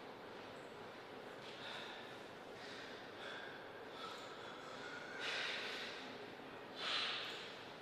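Quiet hall room tone, with two short breathy hisses about five and seven seconds in.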